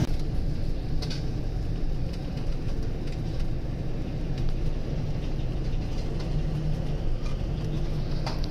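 Steady low rumble of a ship's engine heard on deck, with some wind noise over it and two faint knocks, one about a second in and one near the end.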